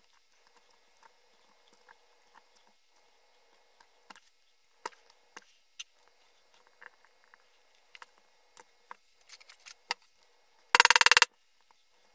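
Scattered small scraping and picking clicks of a hand tool digging the dried-up innards out of an old electrolytic capacitor can. Near the end comes a loud, rapid rattle of clicks lasting about half a second.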